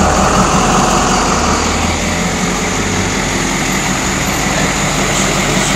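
Kodiak truck's engine running steadily nearby, with a loud, even noise and a low hum that fades about two to three seconds in.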